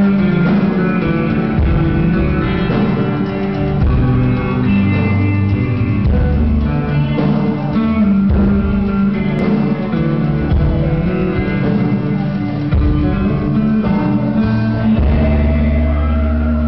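Live rock band playing amplified electric guitar, bass and drums. Near the end a low note is held steady.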